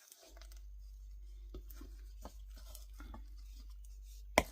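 Wooden spoon folding berries into thick cake batter in a bowl: faint, soft squelching and scraping strokes over a low steady hum, with one sharp knock near the end.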